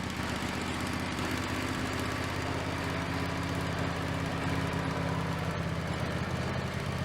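Wood-Mizer portable sawmill's engine running steadily while the raised saw head is pulled back along the log for the next cut.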